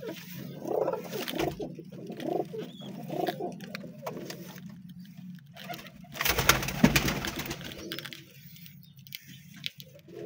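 Domestic pigeons cooing in a loft, with a short burst of rustling handling noise about six to seven seconds in.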